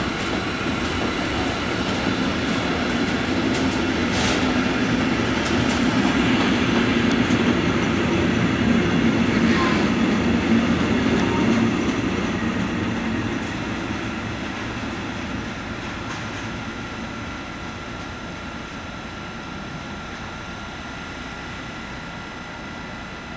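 Freight train of intermodal wagons loaded with lorry trailers rolling slowly past at about 30 km/h on a worn stretch of track under a speed restriction, the wheels rumbling on the rails with a few sharp clanks. After about twelve seconds the sound fades as the train moves away.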